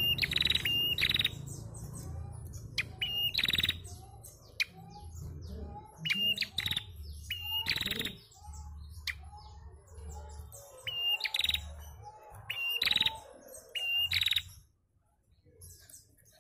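Caged female prenjak calling: short, sharp high chirps and quick rattling trills repeated in bunches, falling silent briefly near the end. A low steady rumble runs underneath.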